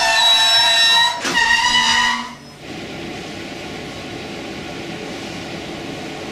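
Rhaetian Railway narrow-gauge passenger coaches rolling past close by, their wheels squealing in several high steady tones. About two seconds in, the squeal cuts off abruptly and a quieter, steady hiss follows.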